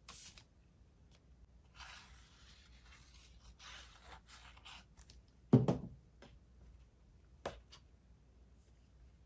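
Sheets of craft paper and cardstock being handled and slid across a tabletop, a scratchy rustling. About five and a half seconds in comes a single loud thump, and a lighter sharp tap follows about two seconds later.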